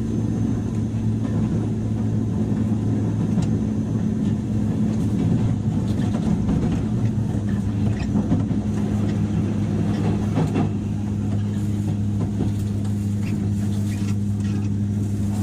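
Running sound of a JR West 103 series electric train, heard from inside motor car MoHa 103-773: a steady low hum over track noise, with a few faint clicks.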